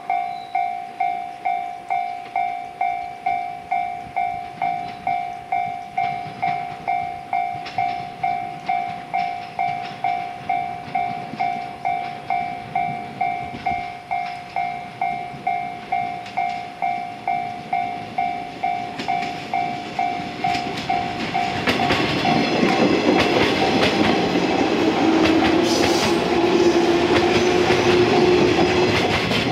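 Japanese level-crossing warning bell ringing evenly, about three strikes every two seconds, as an electric train approaches. From about two-thirds of the way through, the train passes close by, its wheels clattering over rail joints under a rising motor hum, and this is the loudest part.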